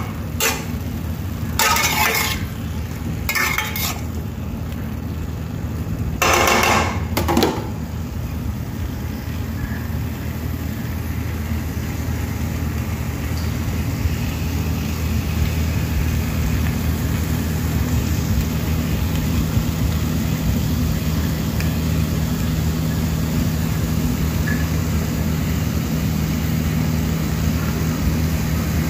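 Metal spatula scraping against a steel frying pan while pasta is stirred, several short strokes in the first eight seconds, over a steady low hum.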